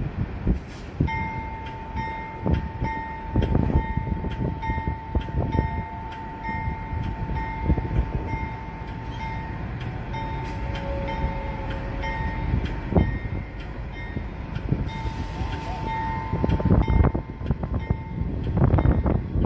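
NR class diesel-electric locomotive hauling a freight train of tank wagons slowly past, the engine and wheels rumbling steadily and growing louder near the end. Over most of it a steady ringing tone pulses about once a second, with regular clicks.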